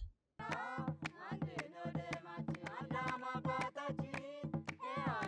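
Music starting after a short silence: a quick, even drum pattern with a melody line over it.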